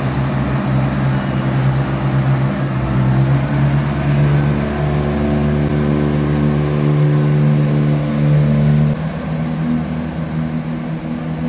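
ScotRail Class 170 Turbostar diesel multiple unit pulling away from the station under power, its underfloor diesel engines running with a steady pitched drone. About nine seconds in, the engine note changes and drops a little in level.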